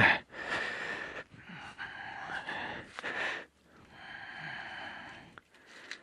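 A man breathing right against a microphone clipped to his face shield: three long, noisy breaths, one after another.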